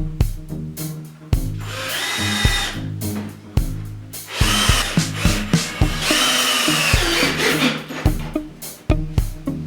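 Power drill running in three short bursts, each a few fractions of a second to a second long, over background music with a steady drum beat.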